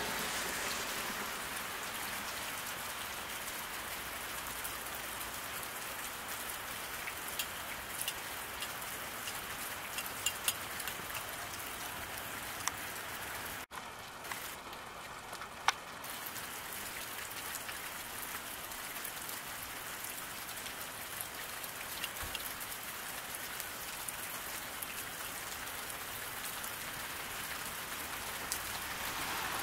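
Steady rain falling on a road, an even hiss with a few sharp drip ticks scattered through it, the loudest a little past halfway.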